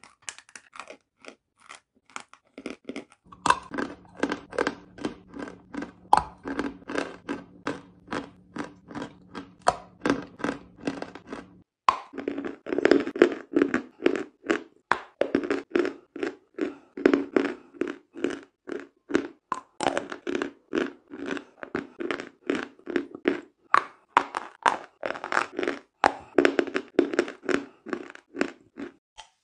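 Lumps of chalk being bitten and chewed close to the microphone: a steady run of dry, crisp crunches, about three a second.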